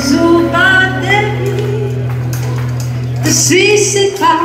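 Amplified Christian worship song over a loudspeaker system: a singer's voice in sung phrases over a held low note from the band.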